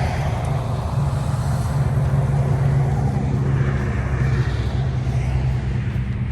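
Vehicle driving under a heavy load of lumber, with a steady low engine hum and road noise.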